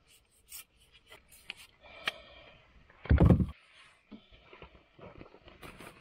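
Trekking pole being collapsed and a backpack being handled at an open car boot: clicks and rubbing of the pole, then a heavy thump a little past three seconds in, followed by rustling and light knocks.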